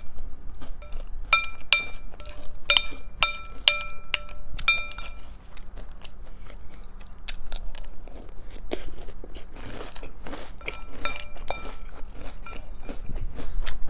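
A spoon clinks against the bowl several times while scooping cereal and milk, and the cereal is chewed with a crunch close to the microphone.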